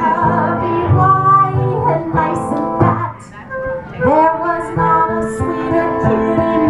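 Live folk song with a woman singing to acoustic guitar accompaniment.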